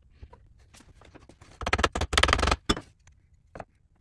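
Hands clearing wood chips from a drill press bit and table: light ticks and rustles, then a louder run of rapid scraping and rustling strokes about two seconds in, which ends shortly before three seconds.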